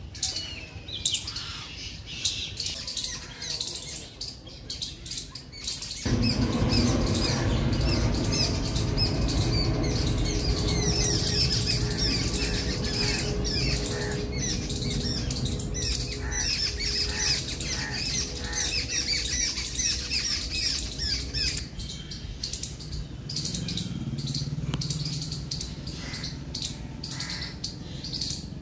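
Small birds chirping and twittering over and over in the trees. About six seconds in, a steady low rumble joins them and eases off near the end.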